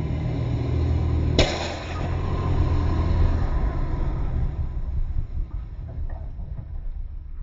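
Pickup truck engine running low and steady during a donut on aired-down tires; about a second and a half in, a sharp bang as a tire blows off its bead, followed by air rushing out in a hiss that fades over a few seconds while the engine eases off.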